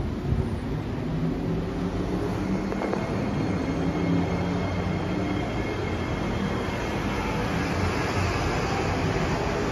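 C151B metro train pulling out of the station and gathering speed: a steady rumble of wheels on the rail, with a hum and a thin whine from its electric traction motors.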